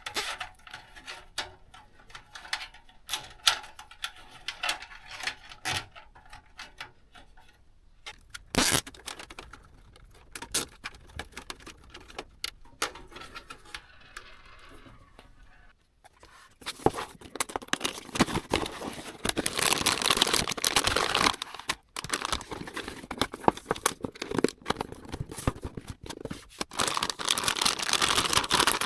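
Hands handling PC parts: scattered light clicks and taps, with one sharper knock about halfway into the first stretch. Then, from a little past the middle, a long stretch of continuous crinkling and tearing.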